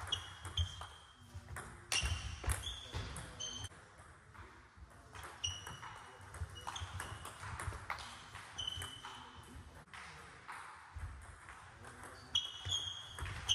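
Table tennis rallies in a large sports hall: the plastic ball clicking off bats and table in quick runs of hits, with short ringing pings, broken by pauses between points.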